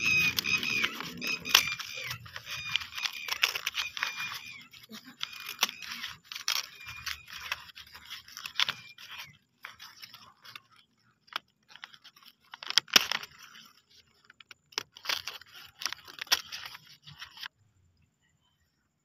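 Crinkling and tearing of the paper wrapper on a takeaway burger as it is opened by hand, in irregular bursts, loudest about two-thirds of the way in, stopping near the end. High wavering pitched sounds run over the first few seconds.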